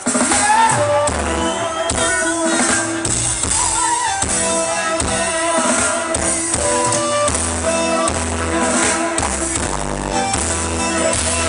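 Band music with a drum kit and a moving bass line, starting abruptly; no clear singing.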